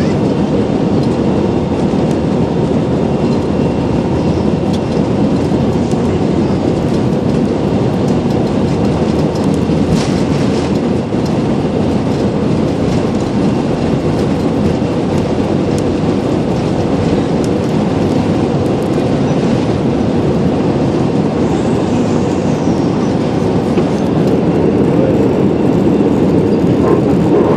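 Steady loud rumble of an airliner heard from inside the cabin during takeoff: engine and airflow noise, with a brief rattle about ten seconds in. A rising whine begins right at the end.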